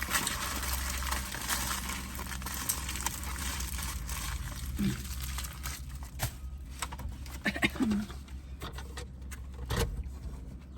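Rustling and handling noises with scattered clicks and knocks as food containers and wrappers are packed up, over a steady low hum.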